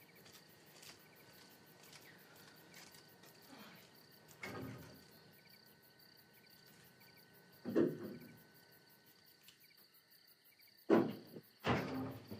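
Crickets chirping steadily as a quiet night background, with a few soft thumps and knocks, the loudest near the end.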